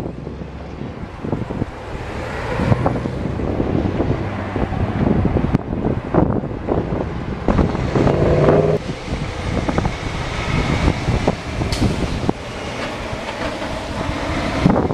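Tractor-trailer dump trucks and other road traffic driving past: a steady diesel engine drone mixed with tyre noise, with a stronger engine tone about eight seconds in.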